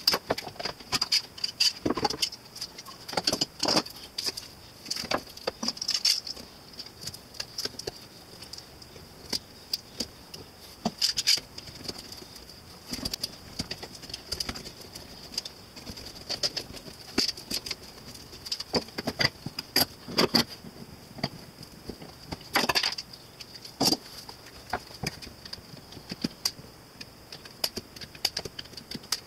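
Metal bar clamps being handled, set and tightened on an end-grain cutting board glue-up: irregular clicks, clanks and knocks of clamp bars, jaws and trigger handles against each other and the wood. A faint steady high whine runs underneath.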